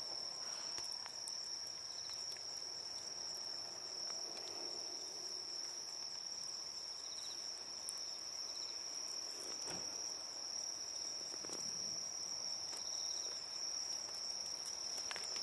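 Crickets trilling steadily in one unbroken high-pitched tone, with a few short pulsed chirps from another insect now and then. A few soft clicks rise above it.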